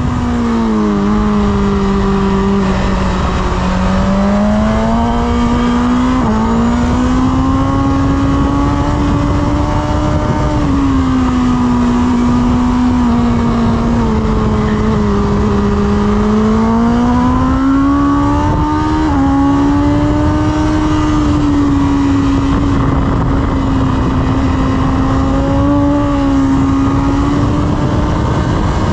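BMW S1000RR's inline-four engine heard onboard at track pace, its pitch climbing under acceleration and falling away into corners, over steady wind rush. Its pitch dips sharply twice, about six and nineteen seconds in, as it changes gear.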